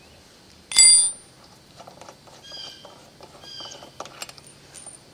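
A single sharp metal clink with a brief ring about a second in, from the steel crank bolt and washer being handled against the crank arm. Soft clicks and a few short high chirps follow.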